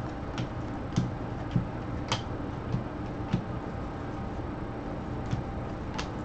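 Baseball cards being flipped one by one off a stack in gloved hands: a short sharp click as each card snaps off, at an uneven pace of roughly one every half second to second, over a steady low background hum.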